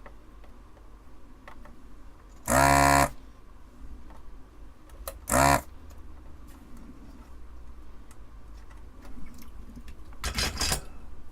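Desoldering tool's vacuum pump buzzing in three short bursts, about half a second each, as it sucks molten solder from a through-hole capacitor's pins.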